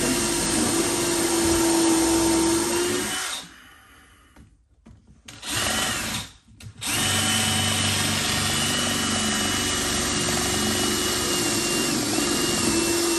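Cordless drill boring pilot holes into a timber joist and its glued-on wooden repair block. It runs for about three seconds and stops, gives a short burst about five seconds in, then runs steadily again from about seven seconds on.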